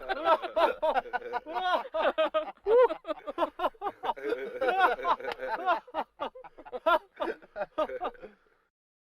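Four men laughing together in quick, overlapping bursts. The laughter thins out and stops about eight seconds in.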